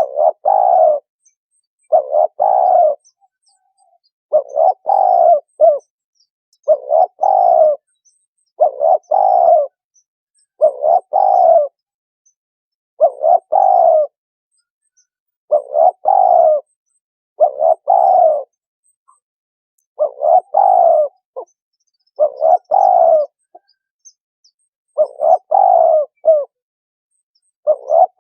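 Spotted dove cooing over and over: phrases of a few notes about a second long, repeating roughly every two seconds.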